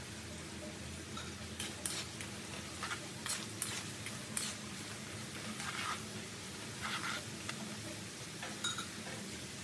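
Metal tongs clinking and scraping against a metal wok as they turn potato fries deep-frying in hot oil, over a steady sizzle. The clinks come in a cluster a couple of seconds in, then a few more later on.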